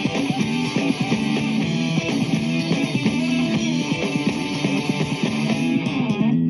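Background music: a guitar track with a steady, repeating beat.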